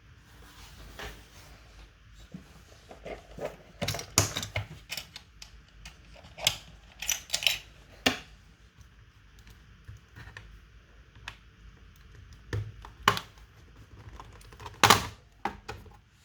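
Hard laptop parts being handled by hand, giving irregular clicks, taps and knocks, with the loudest about four, thirteen and fifteen seconds in.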